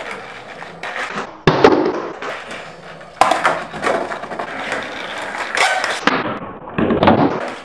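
Skateboard on a concrete floor: wheels rolling, broken by sharp clacks of the board popping and landing. The loudest clack comes about a second and a half in, another about three seconds in, and a cluster near the end.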